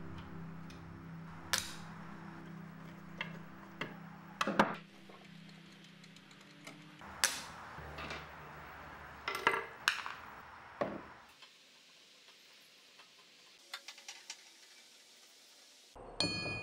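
Scattered clicks and clinks of metal hardware being handled: screws being worked out of a wooden drawer front and brass drawer pulls set down in a plastic parts tray, with a ringing clink near the end.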